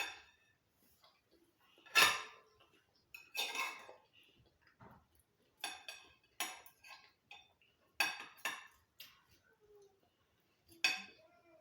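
Plates and cutlery clinking and knocking during a meal: about eight separate short clinks, the loudest about two seconds in.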